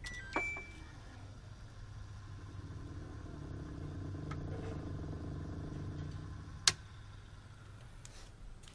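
Samsung top-loading washing machine switched on through a universal replacement control module: a short beep from the panel, then the machine running with a steady low hum that swells in the middle. A single sharp click about two thirds of the way through.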